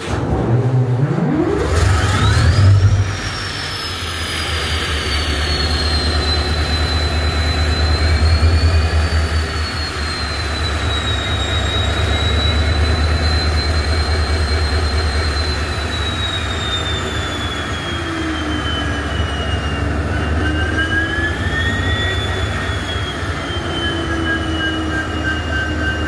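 WDP4D locomotive's EMD 16-710 two-stroke V16 diesel engine starting up: it fires suddenly, a high whine rises over about two seconds, and the engine settles into a steady low rumble with the whine holding on top, drifting slowly in pitch.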